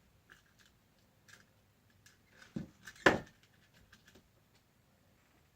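Small laptop parts being handled: a scattering of light clicks and taps, with a sharper click about three seconds in.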